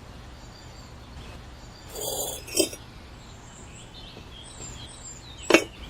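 A few short clinks and knocks, with a sharp click near the end, over faint bird chirps.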